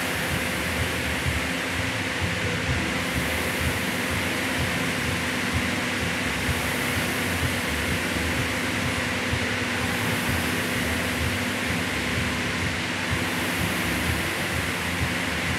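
Air-resistance rowing machine's flywheel fan whirring steadily under a light hum, the whoosh swelling and easing every few seconds with each pull.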